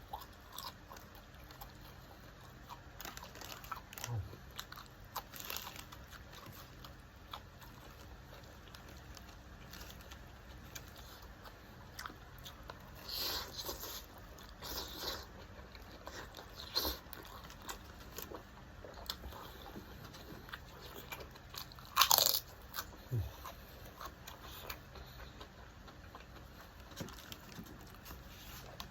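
Close-up eating sounds: chewing and crunching on a mouthful of fried rice and noodles, with scattered small clicks and one much louder sharp click about three-quarters of the way through.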